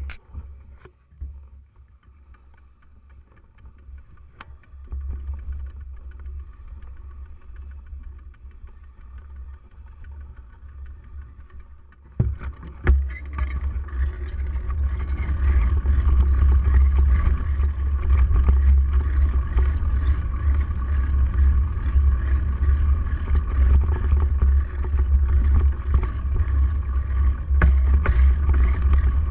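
Wind buffeting the microphone of a handlebar-mounted camera, with tyre and frame rattle as a bike rolls over rough dry dirt. It is fairly quiet at first, then a couple of sharp knocks come about twelve seconds in and the rumble grows much louder and stays loud.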